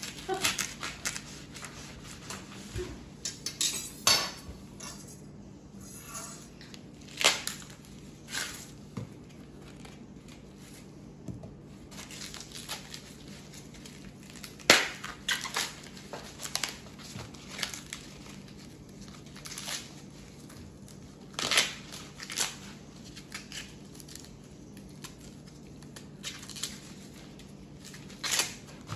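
Fresh green corn husks being peeled and torn off an ear of sweet corn by hand: crackling, rustling and tearing in irregular bursts, with a few sharper, louder snaps.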